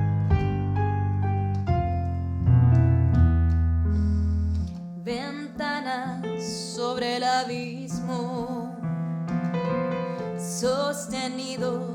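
A piano plays a few chords alone, then about five seconds in a woman starts singing with vibrato over the piano accompaniment.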